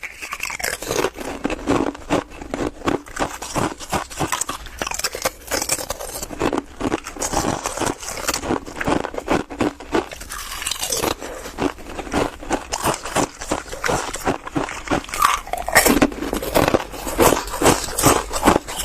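Close-miked biting and crunching of hard ice in the mouth: a dense, irregular run of sharp crunches, several a second, with the loudest bites near the end.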